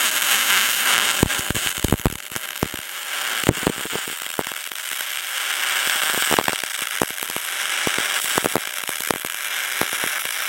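MIG welding arc on aluminum, a wire-feed gun laying a weld bead: a steady crackling hiss with many irregular sharp pops.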